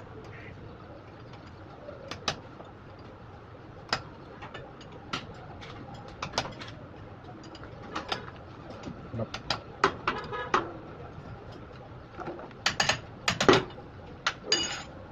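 Scattered sharp clicks and metal knocks from hand tools during an oil-brake repair, with a quick run of clicks about ten seconds in and louder knocks near the end.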